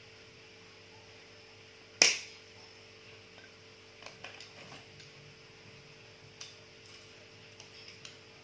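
Steel pliers working a stiff split ring on a metal spoon lure: one sharp metallic snap with a brief ring about two seconds in, then several lighter clicks of metal on metal.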